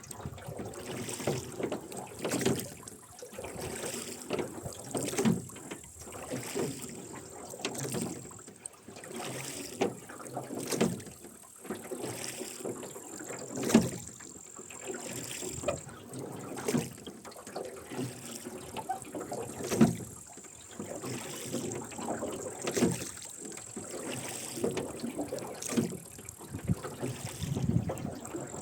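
Rowing boat being rowed: the oarlocks creak and knock and the oars splash with each stroke, about every three seconds.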